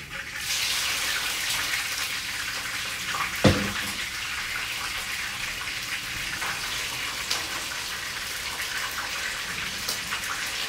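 Pieces of seasoned fish frying in hot oil: a steady sizzle that starts suddenly just after the start, as the last piece goes in. One sharp knock about three and a half seconds in.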